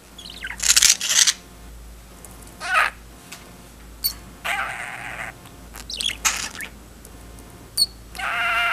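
Budgerigar chirping and chattering in short bursts: several quick high chirps, then a longer scratchy call about halfway and another near the end.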